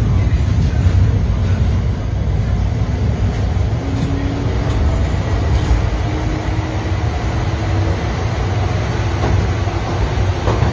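Metro train running, heard from inside the carriage as a steady low rumble with a few faint tones coming and going in the middle.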